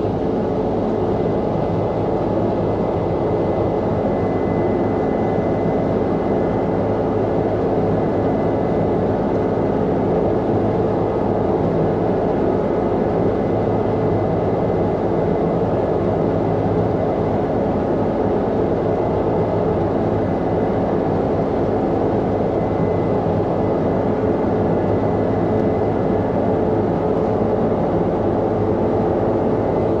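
Combine harvester running steadily while cutting wheat: a constant engine and machinery drone with a faint high whine over it.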